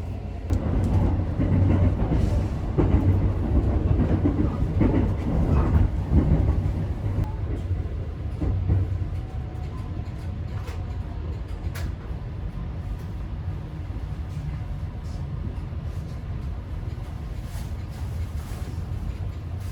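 285 series sleeper train rolling into a station, its wheels and running gear rumbling loudly for the first several seconds, then easing to a quieter rumble about nine seconds in as it slows, with a few clicks over rail joints.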